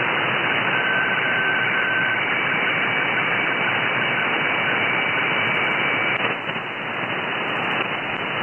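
Shortwave receiver in upper-sideband mode giving loud, steady hiss cut off at about 3 kHz. Under it sits a weak HF weather fax signal, a faint steady high tone with a lower tone joining briefly near the start. About six seconds in the tone drops out and the hiss dips as the receiver is retuned to another frequency.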